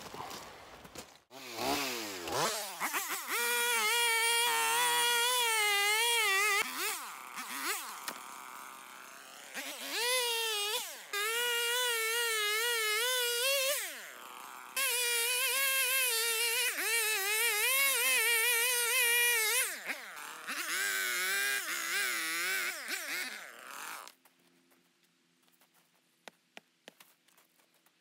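Two-stroke gas chainsaw cutting into a tree's root ball, held at high revs in several long cuts with its pitch wavering under load and dropping back toward idle between them. Near the end the saw is shut off.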